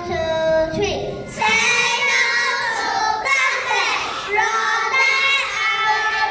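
Young children singing together in held, sung phrases.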